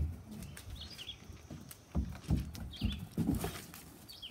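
Several dull thumps, most of them bunched between two and three and a half seconds in, with short bird chirps now and then in the background.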